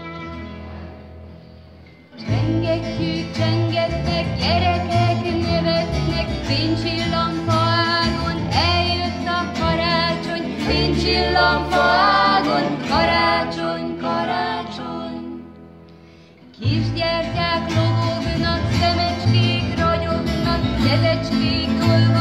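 A live acoustic band plays a children's Christmas song: plucked double bass, strummed acoustic guitar and violin, with several voices singing together. The music fades at the start, comes back in full about two seconds in, and drops away briefly about two-thirds of the way through before resuming.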